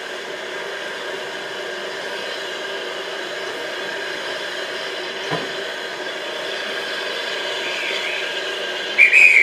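Steam locomotive standing at the platform with a steady hiss and hum of steam. Near the end a guard's whistle trills briefly, the signal to the driver that the train is ready to depart.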